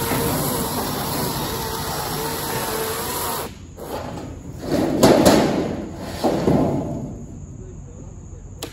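Demolition noise: a steady loud noise that cuts off abruptly about three and a half seconds in, then a few heavy thuds of wood and debris, the loudest about five seconds in and another a second and a half later.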